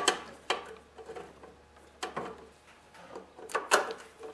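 Nut driver and bolts clicking and knocking as the bolts of a Briggs & Stratton recoil starter housing are fitted and snugged into the engine shroud. A handful of sharp metal clicks, with the loudest near the end.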